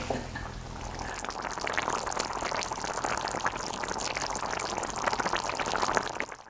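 Mutton mince in a tomato and white-wine sauce simmering uncovered in a frying pan on low heat, with a dense, steady bubbling and popping that starts about a second in. It is being left to reduce until only its oil and fat remain.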